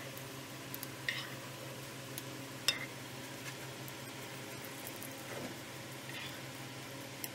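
Oil sizzling faintly in a frying pan, with a few sharp metallic clicks from a stainless mesh strainer being tapped and moved over the pan; the loudest click comes about two and a half seconds in.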